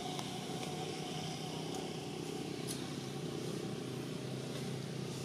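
A vehicle engine running steadily, a low even hum, with a few faint clicks over it.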